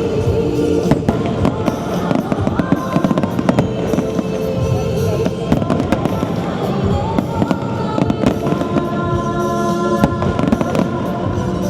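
Fireworks bursting and crackling in quick succession over a song played for the show.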